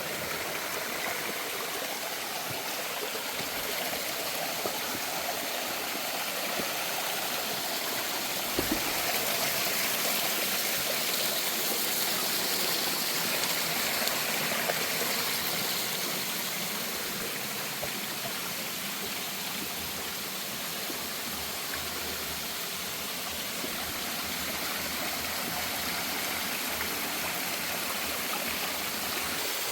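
A mountain waterfall and stream running steadily, a continuous rushing of water. A single brief knock is heard about eight and a half seconds in.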